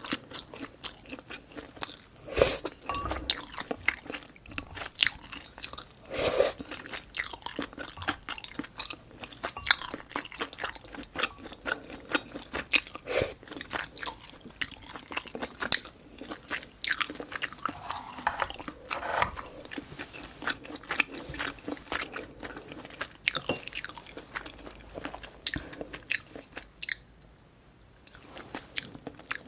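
Close-miked eating sounds: continuous chewing with crunchy bites and many sharp mouth clicks, easing briefly a couple of seconds before the end.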